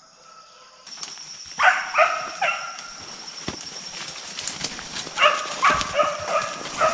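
Deer-hunting dog barking in quick groups of three, one group about a second and a half in and another around five seconds in, over footsteps crunching through dry leaves and brush and a steady high insect drone.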